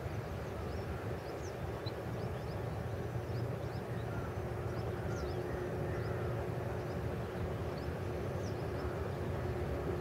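Outdoor background: a steady low rumble with a faint steady hum, and faint high chirps of small birds scattered throughout.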